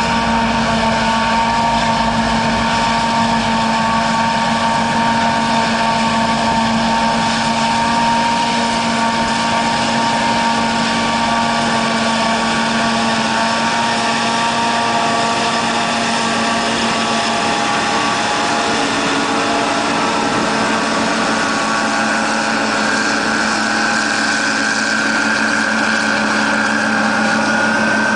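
John Deere 7850 self-propelled forage harvester with a Kemper header running under load as it chops downed sorghum, a loud steady machine drone with several held tones. A higher tone grows stronger near the end as the harvester comes closer.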